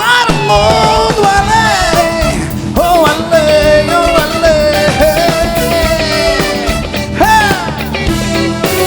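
Live Christian pop-rock band music: a lead melody that slides and bends in pitch rides over the full band.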